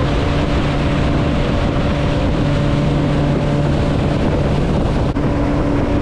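Small passenger motorboat's engine running at a steady speed with an even hum, over the rush of wind and water spray along the hull.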